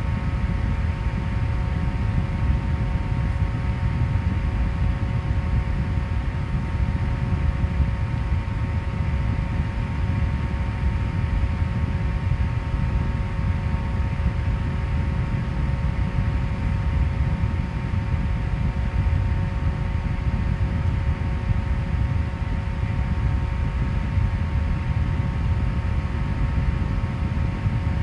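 Electric fan running steadily: a constant rush of moving air with a steady motor hum and several faint whining tones on top. It cuts off abruptly at the end.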